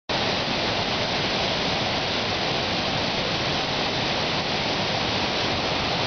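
Steady rush of Whangarei Falls, a wide curtain of water in heavy flow, plunging into its pool close by.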